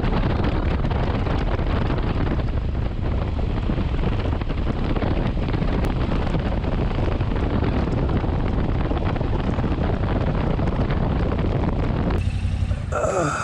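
Steady wind rush on the microphone of a Royal Enfield Himalayan 411 riding at road speed, with its engine and road noise beneath. About 12 seconds in the rush drops away and a brief falling tone follows.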